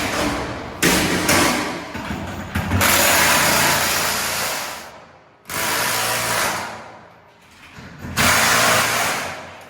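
Loud bursts of hissing machine noise, five of them, each a second or two long with short lulls between, from demolition work on steel parking equipment.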